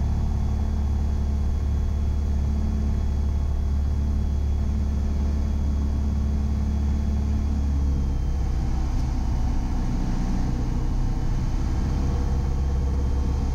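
Piper Arrow's piston engine and propeller running steadily, heard inside the cabin on final approach; the note drops slightly about eight seconds in.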